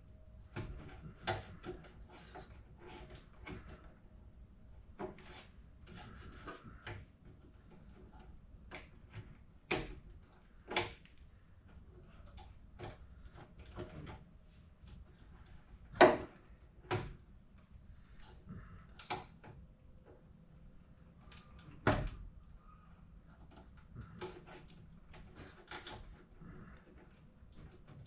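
Irregular clicks, taps and knocks of hands working with parts and tools, with two louder knocks about sixteen and twenty-two seconds in.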